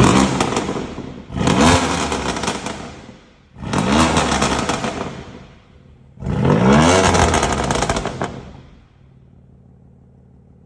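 BMW M2 Competition's twin-turbo inline-six revved hard three times, about two and a half seconds apart, each rev rising in pitch and dying away through the exhaust, then settling back to a steady idle.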